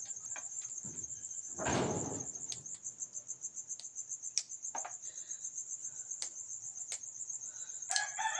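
Crickets chirping steadily, with sharp snaps of vegetable fern (pako) stems broken by hand over a metal tray and a short rustle of the greens about two seconds in. Near the end a rooster starts crowing.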